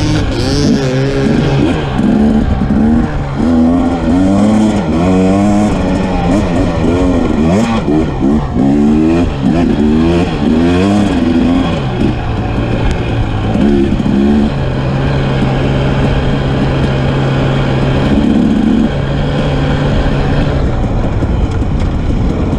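Dirt bike engine heard from on board, revving up and dropping back again and again in quick sweeps as the rider works the throttle through the track's turns and jumps, then holding a steady pitch for a few seconds about two-thirds of the way through.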